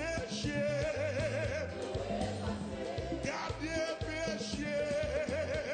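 Live gospel music: a male singer holds long wavering notes with vibrato over a band with a steady bass line.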